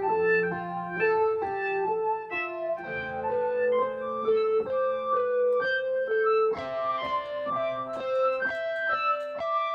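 Roland SK-88Pro Sound Canvas keyboard played with both hands: a slow melody of clear, sustained notes changing about twice a second over held bass notes, growing fuller and brighter about two-thirds of the way through.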